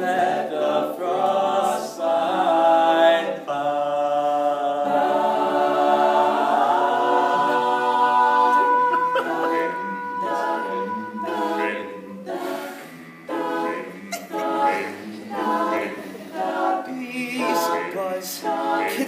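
All-male a cappella group singing in close harmony: held chords for about the first half, then a quicker, choppier passage of short sung syllables.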